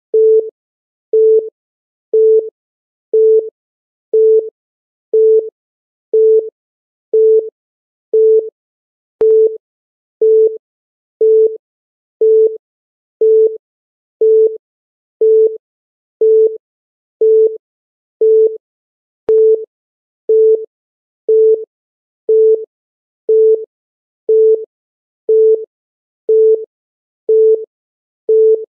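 Electronic countdown-timer beep: one short, steady mid-pitched tone every second, marking off the seconds of the countdown.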